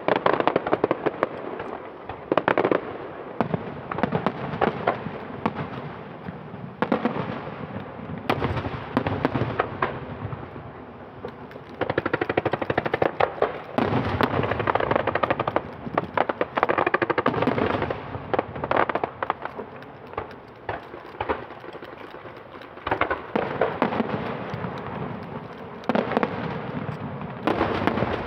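Fireworks display: shells bursting in dense, rapid volleys of bangs and crackle that come in loud waves every few seconds.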